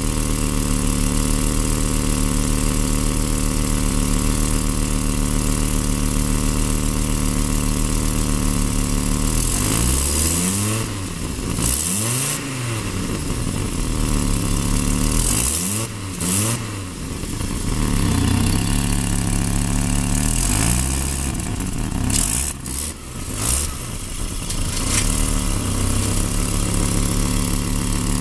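Turbocharged car engine with a cracked Stromung wastegate tube, idling steadily, then revved several times about ten seconds in, with short hissing puffs at some of the revs, before settling back to idle near the end.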